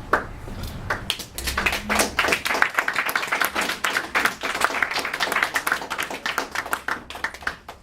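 A small group of people clapping by hand, a round of applause that picks up about a second in and tails off near the end.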